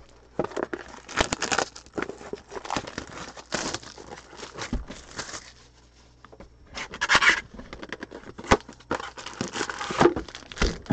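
Hands handling and unwrapping sealed trading card boxes: crinkling and tearing plastic wrap and foil packs, with sharp knocks as cardboard boxes are set down on the table.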